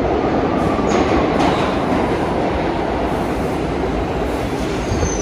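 New York City subway train running on the rails, a steady loud noise of wheels and track, with a brief high squeal about a second in.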